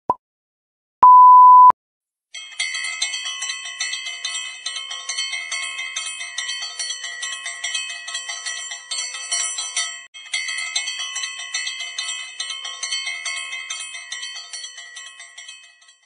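Countdown timer's final short beep, then a long steady beep about a second in marking zero. A bell then rings rapidly as the time's-up signal, with a brief break about ten seconds in and fading near the end.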